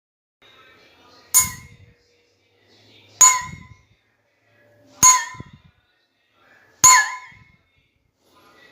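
A tilted bowl holding a little water struck on its edge with cutlery four times, evenly spaced. Each strike rings with a bell-like tone that dips and wobbles in pitch as it fades.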